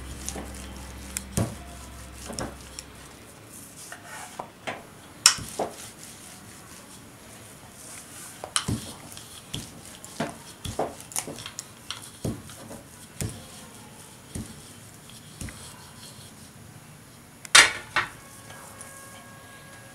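Wooden rolling pin rolling and knocking on a wooden chakla board as a masala paratha is rolled out: irregular light clicks and knocks, with two louder knocks about five seconds in and near the end.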